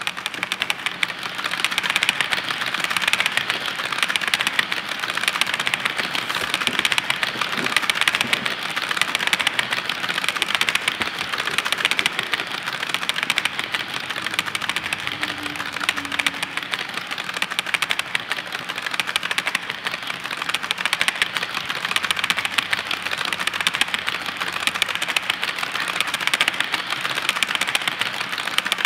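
Wheels of a long string of HO-scale Walthers coal hopper cars rolling over model track: a fast, steady clicking clatter of many small metal wheels over the rail joints.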